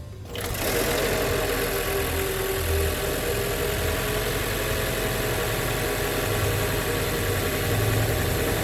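Toyota Highlander Hybrid's 2.5-litre four-cylinder engine running steadily at idle, letting the freshly added oil circulate before the level is checked. It comes in about half a second in and holds steady.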